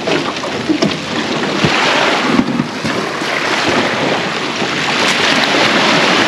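Small waves washing up and draining back over a beach of coral rubble, with wind buffeting the microphone. A few sharp clicks in the first half.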